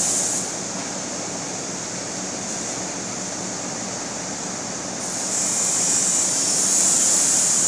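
Macadamia nut cutting machine running steadily with a hum. A louder rushing hiss joins about five seconds in as a bag of nuts is tipped into the hopper and fed through the cutter.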